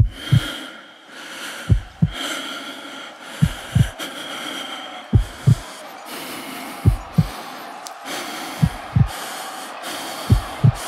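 Slow heartbeat-style sound effect: pairs of deep thumps, about every 1.7 seconds, over a faint atmospheric pad of held tones.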